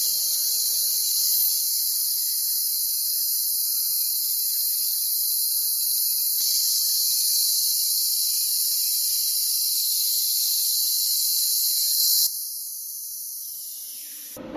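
Bestarc BTC500DP handheld plasma cutter hissing steadily as its arc cuts through a flat steel bar. The hiss cuts off abruptly about twelve seconds in, leaving a fainter hiss that fades away.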